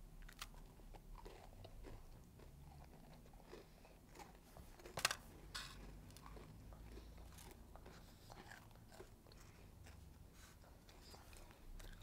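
Faint crunching and chewing of chocolate-coated coconut biscuits, with a couple of sharper crunches about five seconds in.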